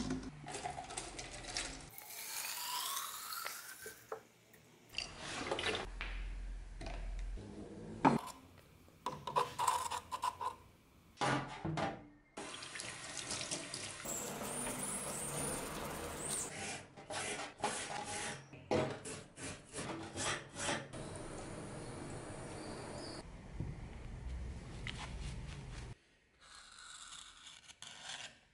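Tap water running and splashing in a stainless steel sink as a rust-cleaned mortise chisel is washed, amid short clips of the chisel being handled in a plastic bottle of rust-remover liquid and laid on a workbench. Sharp knocks and clatter throughout, the loudest a sharp knock about 8 seconds in.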